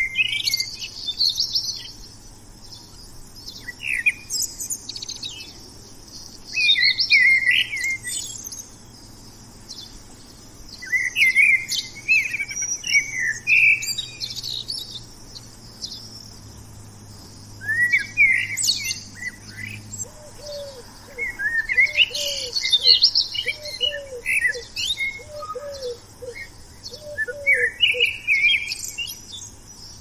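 Songbirds singing: short, bright, twittering phrases every few seconds. About two-thirds of the way in the recording changes, and a run of lower, short, downward-slurred notes repeats under the high song.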